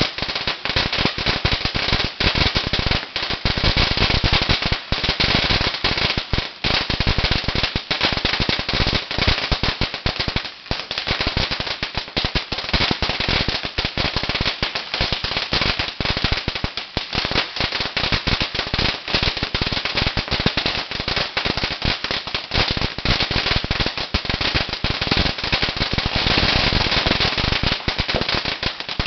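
A 50,000-count string of red paperless firecrackers going off in a dense, continuous rapid-fire crackle of bangs that never lets up.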